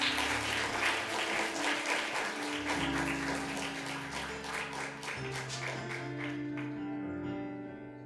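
Audience applause over instrumental music with held notes; the applause fades out near the end while the music carries on.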